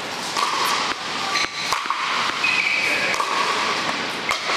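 Athletic shoes squeaking in short, high, flat chirps on a hard court floor, with a few sharp knocks over a steady hiss of room noise.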